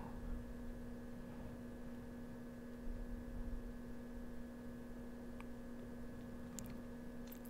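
Steady electrical hum with faint hiss under it, and a few faint clicks about three seconds in and again near the end.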